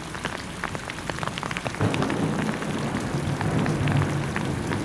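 Steady rain falling, with many separate drops striking close by. About two seconds in, a louder low rumble joins the rain and keeps going.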